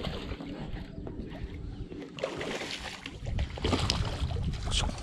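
A small hooked largemouth bass splashing and thrashing at the water's surface as it is reeled in, the splashing getting louder about three seconds in.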